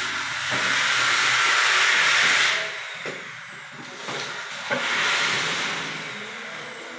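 Water hissing through a toilet's supply valve and fill valve as the tank fills: a loud hiss for about two and a half seconds, a dip, then a second hiss for about two seconds.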